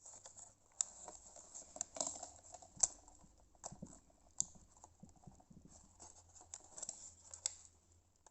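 Faint, irregular plastic clicks and taps of a microphone being handled and fitted onto a camcorder's mount, the loudest a little under three seconds in.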